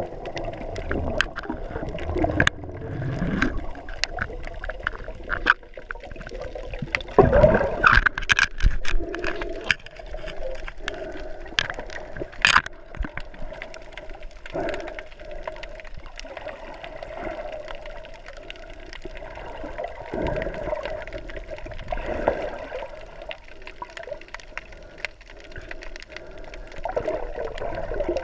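Underwater ambience picked up by a camera held under the sea: water gurgling and sloshing, with many scattered sharp clicks and crackles. It swells louder around seven to nine seconds in and again a little past twenty seconds.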